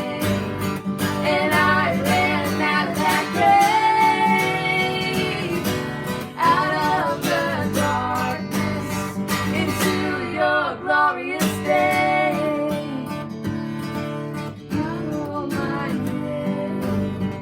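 Music: a strummed acoustic guitar accompanying a singing voice, a worship song.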